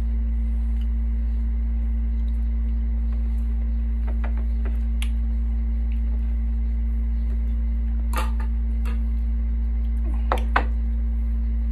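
A steady low hum throughout, with a few short soft clicks and taps from eating at a table. Two sharper clicks come close together near the end.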